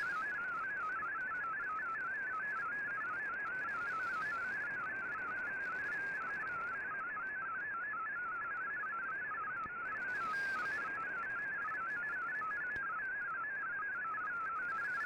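MFSK32 digital text broadcast received on shortwave through an Icom IC-R8600 receiver: a steady, rapid warble of tones hopping up and down in a narrow band, over receiver hiss. The tones carry the text data being decoded.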